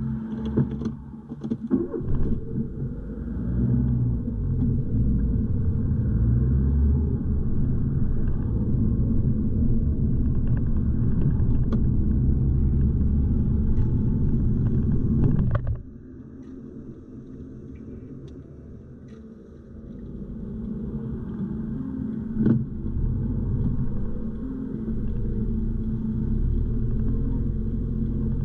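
A car driving on city streets: steady low road and engine rumble heard from the moving car. It drops away suddenly about halfway through, then builds back up, with a few clicks near the start and a single tick later on.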